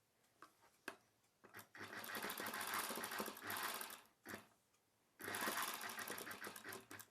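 Sewing machine stitching a seam in two short runs with a brief pause between, its needle ticking rapidly.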